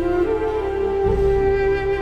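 Background music: a slow melody of long held notes, with a low pulsing part swelling in about a second in.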